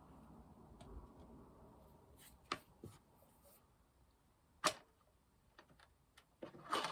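Fidget toys being handled and put down: faint rustling, then a few sharp clicks and taps, the loudest about two and a half and four and a half seconds in.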